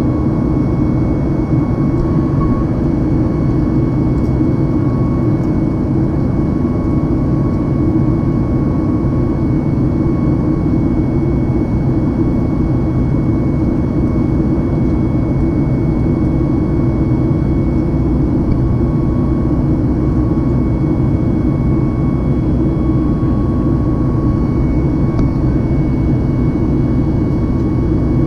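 Boeing 737 MAX's CFM LEAP-1B jet engines heard from inside the cabin in flight: a steady, even roar with a faint high whine running through it.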